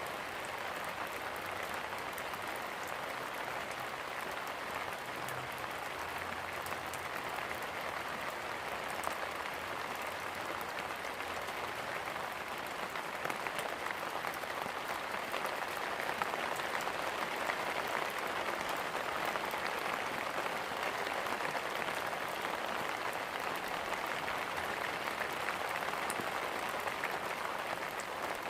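Steady rain falling: a dense, even hiss of many drops, growing a little louder around the middle.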